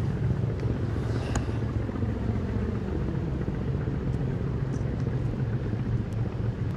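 Passenger motor ship's engine running with a steady low rumble, with a few faint clicks.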